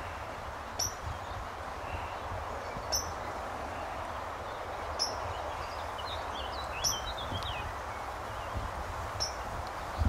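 Outdoor ambience: a steady hiss with a low rumble, and a bird giving a short high call about every two seconds. A brief flurry of chirping notes comes around six to seven seconds in.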